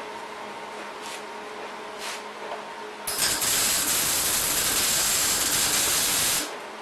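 Electric arc welding on the steel of a mower deck: the arc starts about three seconds in, runs as one steady, loud hiss for about three seconds, and cuts off sharply near the end.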